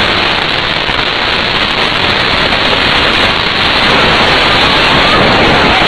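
A loud, steady rushing hiss like static, starting and stopping abruptly, with a faint wailing voice showing through near the end.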